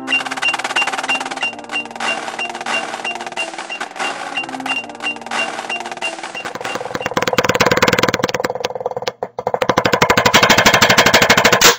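Marching snare drumline playing a drill in unison to a steady metronome click, with brass holding notes behind it. Near the end the sound changes to a fast, even run of drumsticks on a rubber practice pad.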